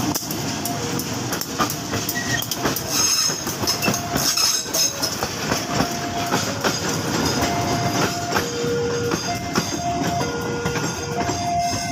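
Railway crane train passing close by, its wheels clattering over the rail joints in a dense run of clicks. From about halfway through, a two-note tone sounds on and off, alternating between a higher and a lower note.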